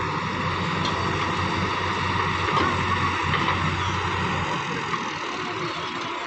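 Backhoe loader's diesel engine running steadily under a wash of noise. Its low hum drops away about four and a half seconds in.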